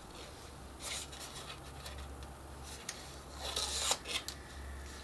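Decorative paper rustling and rubbing as it is pressed and smoothed around a chipboard cone, in short scratchy strokes, with a louder crinkle about three and a half seconds in.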